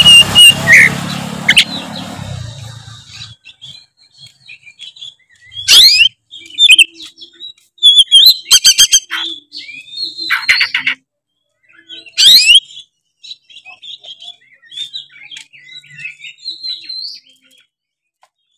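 Oriental magpie-robin (kacer) singing in loud, varied phrases: quick rising whistled sweeps and rapid rattling trills, with softer chattering notes between them. A noisy rush under the song fades away over the first few seconds.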